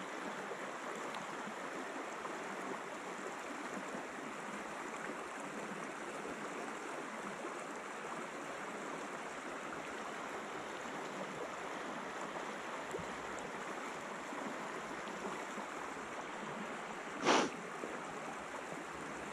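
Steady rush of water running through a shallow river riffle, with one short, louder noise about 17 seconds in.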